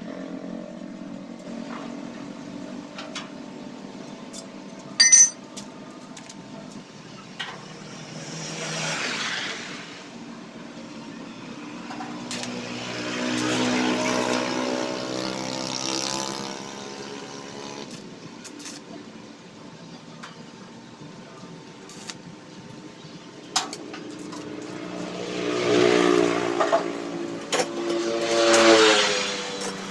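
Motor vehicle engines passing one after another, each swelling and then fading with its pitch rising and falling. About five seconds in there is one sharp, ringing metallic clink.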